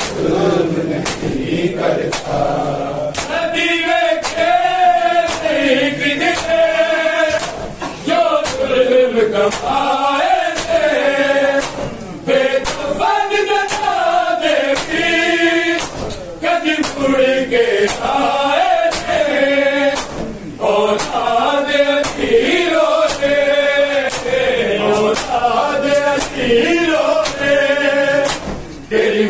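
A group of men singing a noha, a Shia mourning lament, in chanted phrases, with a steady beat of open-hand slaps on bare chests (matam) keeping time.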